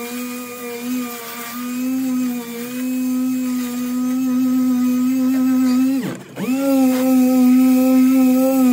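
Air-powered orbital sander with a 40-grit disc sanding down a welded patch on a car's steel wing: a steady whine with overtones. About six seconds in it briefly slows and then picks back up to speed.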